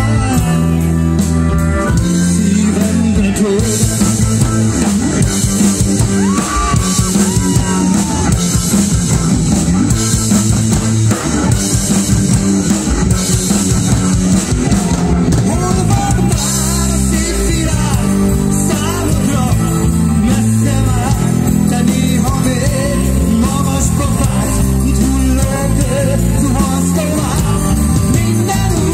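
Live rock band playing: electric guitar, keyboards and drum kit, with a man singing.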